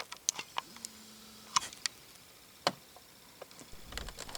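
The right-hand adjustment knob on a BMW E46 instrument cluster being turned to set the clock back, giving a handful of sharp clicks at uneven spacing.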